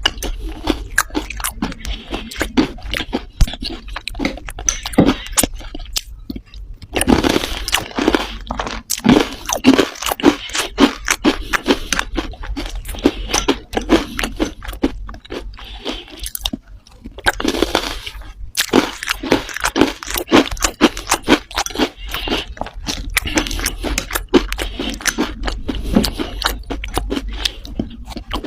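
Dry red clay crunching and crumbling: dense runs of sharp cracks and crackles as chunks break apart, pausing briefly twice.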